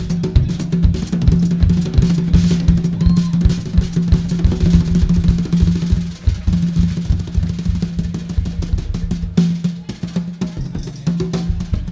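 A drum kit played live and fast: dense snare and bass drum hits with rolls and cymbals, over a steady low note underneath.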